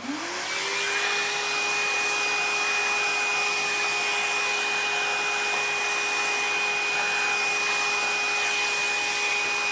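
A vacuum cleaner being used to suck dust out of a vacuum's fan: its motor switches on and spins up within about half a second to a steady whine over a rush of air, then is switched off near the end and starts to wind down.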